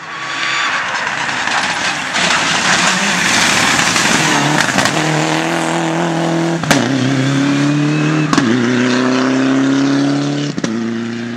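Mitsubishi Lancer Evolution IX rally car's turbocharged four-cylinder engine at full throttle on a stage. A loud, dense rush of engine and road noise comes first. Then the engine note climbs through the gears, with a sharp crack at each of three shifts.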